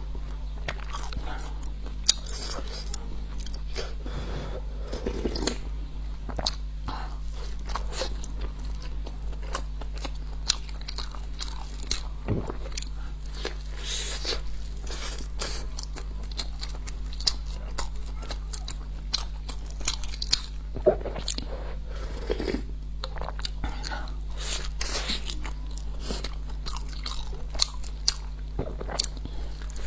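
A person biting and chewing food close to the microphone, with many short sharp clicks and mouth sounds, over a steady low hum.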